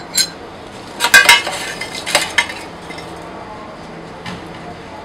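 Metal spoon and scoop clinking against topping containers: a sharp clink at the start, rattling clusters about one and two seconds in, and a single light tap near the end.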